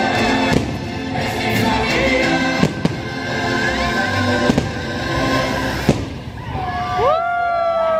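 Aerial fireworks of a theme-park fireworks show bursting, with about four sharp bangs over the show's music soundtrack. Several falling gliding tones are heard near the end.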